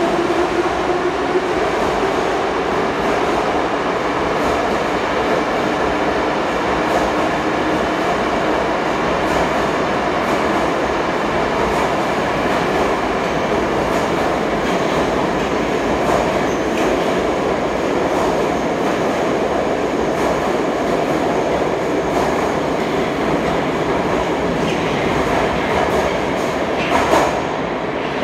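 Coupled 81-722 'Yubileyny' metro trains rolling slowly through an underground station: a steady rumble of wheels on rail, with wheels clacking over rail joints and a whine rising in pitch near the start. A short louder noise comes about a second before the end.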